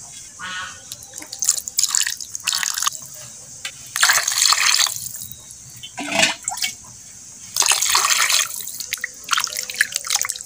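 Water splashing and dripping as small pieces of raw chicken are rinsed by hand in a glass bowl of water. It comes in several separate bursts, the longest about four seconds in and again near eight seconds.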